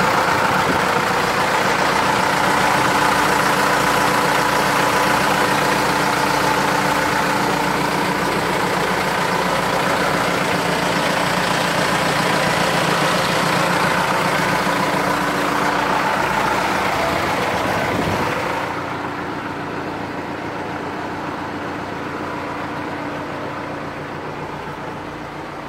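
Caterpillar 428E backhoe loader's diesel engine idling steadily. About 18 seconds in the sound becomes quieter and duller, and it keeps idling.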